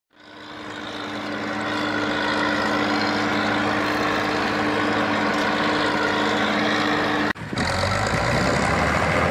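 Bizon Z056 combine harvester's six-cylinder diesel engine running steadily, fading in at the start. About seven seconds in, a cut brings a rougher, deeper run of the same combine working in the grain.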